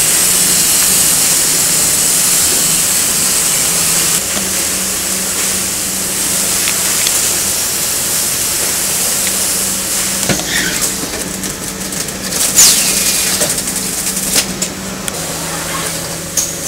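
Pneumatic case-packing robot for PET bottles running: a steady mechanical hum under a constant air hiss, with a few sharp clacks and short hissing sweeps from its moving parts in the second half.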